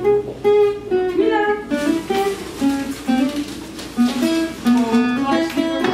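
Background music: a plucked acoustic guitar playing a melody of separate notes.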